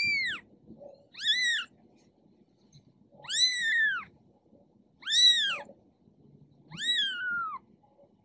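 Very young kitten mewing: five high-pitched cries, each rising and then falling in pitch, about one every one and a half to two seconds, the last one sliding lower at its end.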